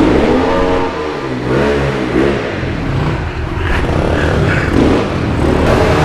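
Small four-stroke pit bike engines running, the throttle blipped so the revs rise and fall several times.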